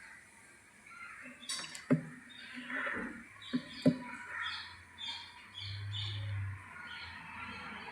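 Birds chirping in short calls, repeated a few times a second, with three sharp clicks; the loudest click comes about four seconds in.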